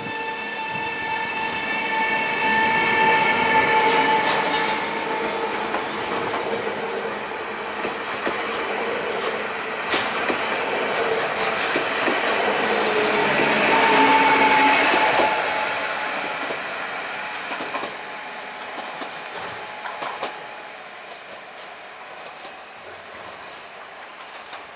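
Pesa Elf 2 (48WEc) electric multiple unit running past at close range, its traction drive whining in several steady tones over the running noise of wheels on rail. The whine comes back strongly about halfway through, and then the sound fades away over the last few seconds.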